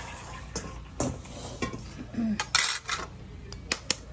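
Metal spoon clinking and scraping against a stainless steel bowl and china plates while separating egg yolks from whites, in scattered sharp clicks and short scrapes. Near the end come a few quick taps as the spoon cracks an eggshell.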